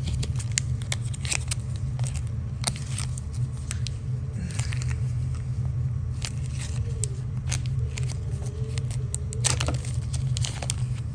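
Irregular sharp metallic clicks of a budget metal haptic coin fidget being turned and snapped in the hand, its magnets weak and its bearing gritty. A steady low hum runs underneath.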